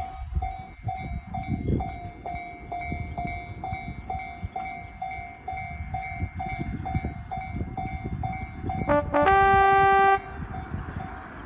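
Japanese railroad crossing warning bell ringing its steady 'kan-kan' at about three strikes a second. About nine seconds in, a train horn gives a short blip and then a held blast of about a second. A low rumble runs underneath.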